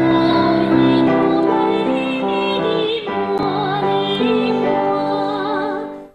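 A woman singing, holding long notes with vibrato. The singing starts abruptly and fades out near the end.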